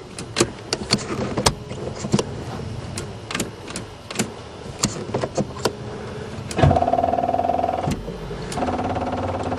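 Scattered clicks and knocks, then twice a steady electrical buzz, about a second and a half and then about a second, as a Buick Regal's ignition is tried on a battery too weak to start it.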